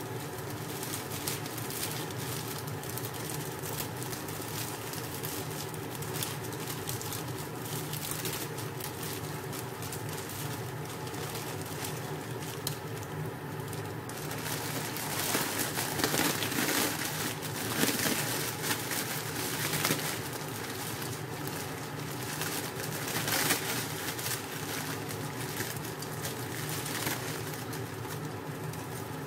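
Broth simmering in a pot on a gas stove, a steady bubbling with many faint low sounds mixed in. It gets louder and crackly about halfway through, with handling noises, and then settles back before the noodles go in.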